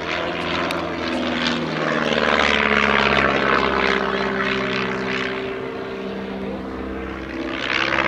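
Stampe SV4C biplane's piston engine and propeller running through an aerobatic display, the engine note rising and falling as it manoeuvres. It swells loudest a few seconds in and again near the end.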